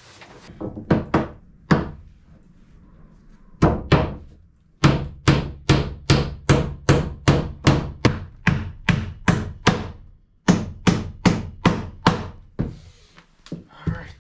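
Hammer driving nails into wooden boards, in runs of about three strikes a second with brief pauses between, a few single strikes coming first.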